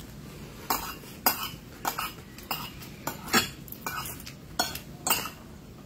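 Spoon and fork clinking and scraping against a plate while eating, about ten short sharp clinks, roughly one every half second.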